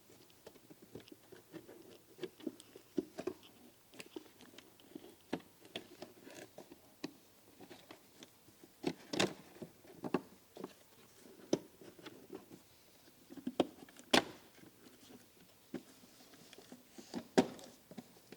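Scattered clicks and knocks of a plastic airbox and intake duct being handled and pushed into place as they are lined up with their seating groove, with a few sharper knocks in the second half.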